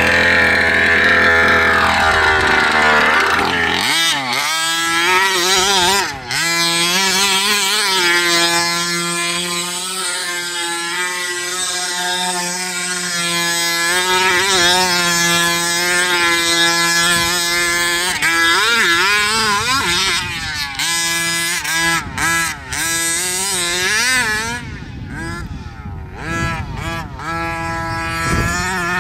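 A 1/5-scale HPI Baja RC buggy's small two-stroke petrol engine running hard, its pitch rising and falling with the throttle and holding steady for stretches at high revs.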